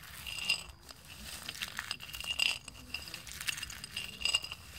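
Peanuts pressed and rubbed by hand in a ceramic plate: the nuts click and scrape against the china in irregular bursts, with a light clinking ring from the plate.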